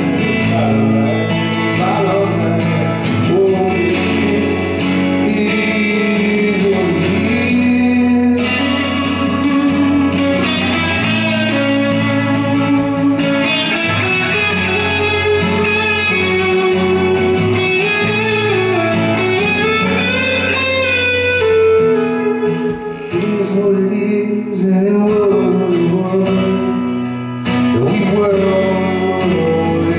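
Live song played on an electric guitar and an acoustic guitar together, with a male voice singing in places. The music drops a little in level for a few seconds past the middle, then comes back up.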